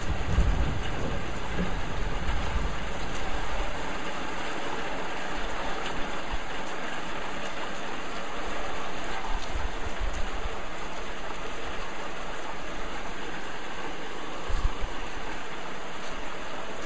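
Steady heavy rain hissing throughout, with a low rumble of thunder in the first few seconds that dies away. Brief low rumbles return a few times, the strongest near the end.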